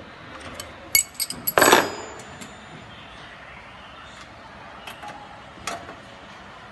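Metal clinks and clatter from handling the machine's sheet-metal housing and parts: a quick run of sharp clicks about a second in, then a louder metallic rattle that rings briefly, and two single clicks later.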